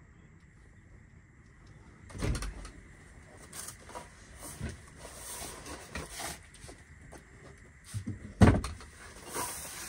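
A man coming in through a wooden door with a cardboard box: a few scattered knocks and thumps of the door and his steps, the loudest about eight and a half seconds in, with rustling of movement in between.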